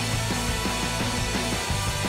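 Background rock music with a steady beat, about four notes a second over a held bass line.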